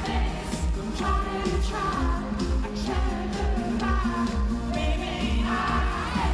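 Live pop song from the audience: a male lead vocal sung into a handheld microphone over the band, with a steady kick-drum beat.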